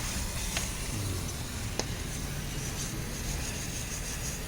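Steady workshop background noise with two short sharp clicks, about half a second and two seconds in.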